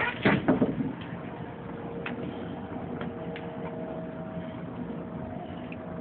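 Steady mechanical hum holding a few even tones, with several faint clicks scattered through it, after a brief louder sound in the first second.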